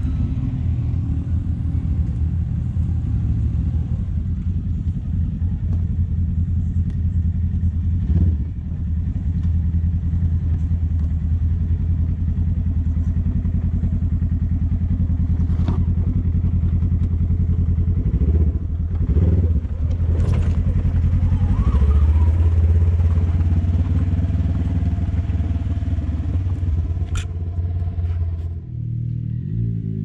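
Side-by-side UTV engine running at fairly steady revs as the machine crawls up a steep, rooty dirt hill. The engine note drops briefly a few times, and there are occasional sharp knocks from the rig.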